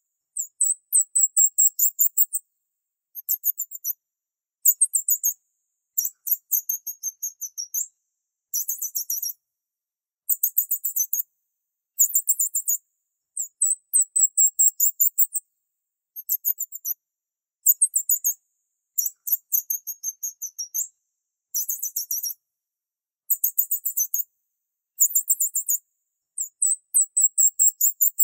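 Rapid, very high-pitched chirping in repeated short bursts separated by brief silences. Each burst is a fast trill of chirps, with no low cooing at all.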